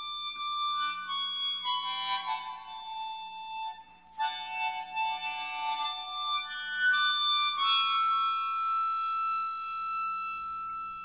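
Instrumental ballad music led by a sustained, reedy melody line of held notes. The music nearly drops out for a moment about four seconds in, and louder, fuller music comes in right at the end.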